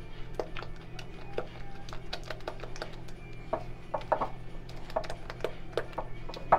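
A utensil knocking and scraping against a glass mixing bowl as thick cream cheese frosting is stirred by hand: irregular clicks, a few a second, with a sharper knock near the end.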